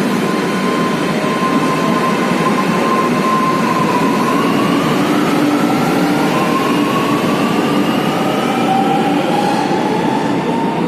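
Lucknow Metro train accelerating out of the station: a steady rolling noise of wheels on rails, with the electric traction motors' whine climbing slowly in pitch.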